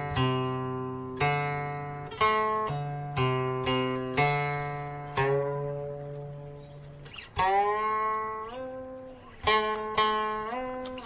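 Guqin, a Chinese seven-string zither, playing slow plucked notes that ring and fade one after another. About seven seconds in, one note slides up in pitch, holds, and glides back down.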